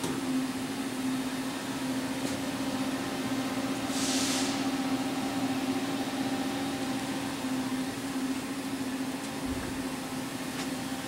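Steady electrical-mechanical hum of powered wire EDM equipment, one low pitch with several overtones over a noisy background, with a brief hiss about four seconds in and a couple of faint ticks.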